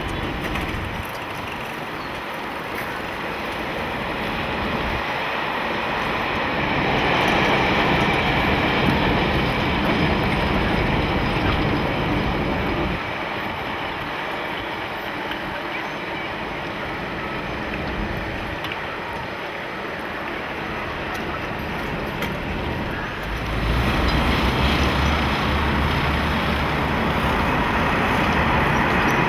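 Outdoor ambience beside an elevated metro line: a steady wash of traffic and train noise that shifts several times. It grows louder about seven seconds in, and a low hum joins near the end.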